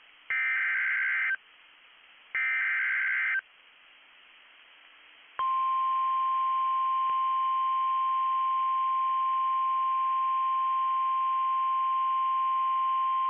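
NOAA Weather Radio emergency alert signalling. Two roughly one-second bursts of screeching SAME digital header data come about two seconds apart, then the steady 1050 Hz warning alert tone begins about five seconds in and holds. Faint receiver hiss lies between the bursts.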